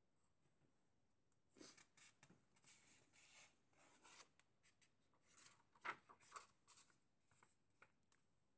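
Faint, irregular rustling and soft ticks of paper as a model kit's instruction booklet is handled. The rustles start about one and a half seconds in and die away near the end.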